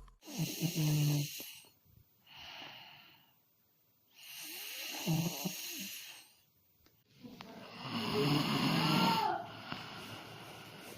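A sleeping person snoring: three long snores about every three to four seconds, with a weaker breath between the first two.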